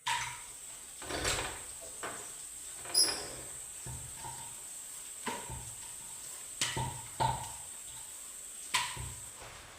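Kitchen utensils being handled: about eight irregular knocks and clinks, several with a short metallic ring.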